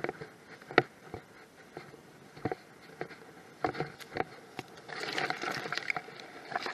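Tall grass rustling and brushing against a handheld camera as it is pushed through the stalks. There are scattered small knocks of handling, and a longer rustle about five seconds in.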